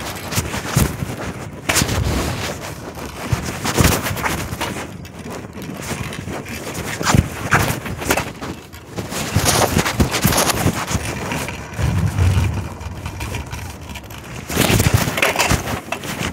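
Clothing rubbing and bumping against a phone's microphone inside a pocket: irregular scraping rustles and knocks as the wearer moves.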